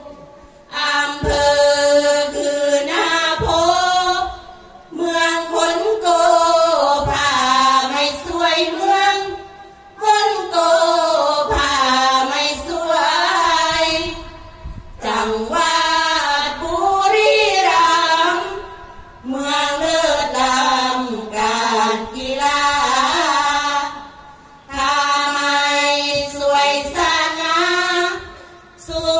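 A group of women singing sarabhanya, the Thai Buddhist verse chant, unaccompanied. It goes in long sung phrases broken by short pauses about every four to five seconds.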